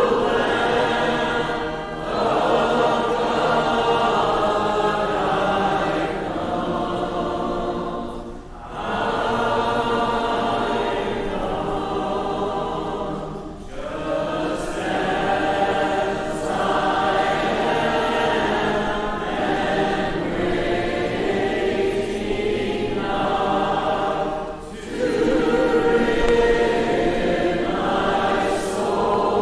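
A congregation singing a hymn unaccompanied, many voices together, with brief breaks between phrases every few seconds.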